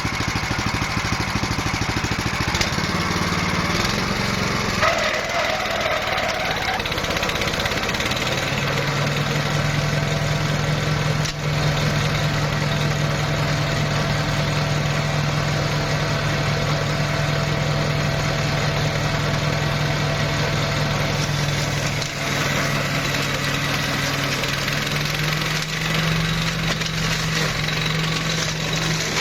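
Walk-behind flail mower's GX390-type single-cylinder petrol engine running steadily. Its speed steps up about eight seconds in and rises slightly again near the end.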